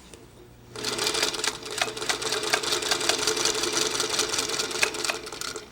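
Electric sewing machine stitching a seam at steady speed, a fast even run of needle strokes over the motor hum; it starts under a second in and stops near the end.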